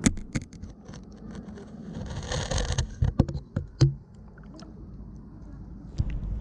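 Water moving around a GoPro camera in its waterproof housing, with a low muffled rumble. There are several sharp knocks and a short splashing burst about two seconds in.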